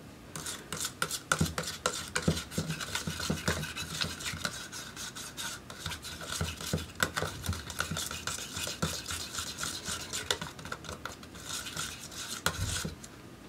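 An old metal butter knife stirring blue and red acrylic paint in a small plastic cup, the blade scraping and clicking against the cup's sides and bottom in quick repeated strokes. The stirring stops near the end.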